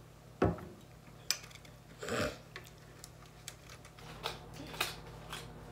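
Scattered light clicks and taps as a plastic sauce bottle is shaken and set down on the table and chicken is picked at over a plate and foil, with a duller knock about half a second in.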